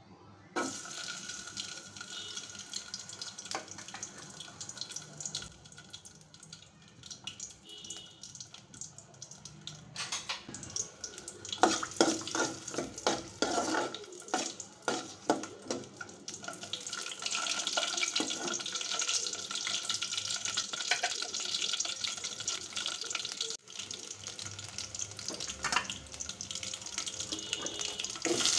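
Halved garlic cloves sizzling and crackling in hot oil in an aluminium pot. A metal spoon stirs and knocks against the pot in the middle stretch, and the sizzle grows denser near the end.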